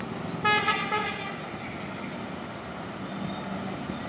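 A horn toots briefly about half a second in, over a steady low hum.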